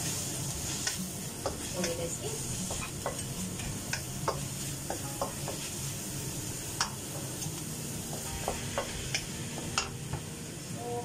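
Chopped vegetables sizzling in hot oil in a stainless steel wok, stirred with a wooden spatula that scrapes and knocks against the pan at irregular moments, about once or twice a second.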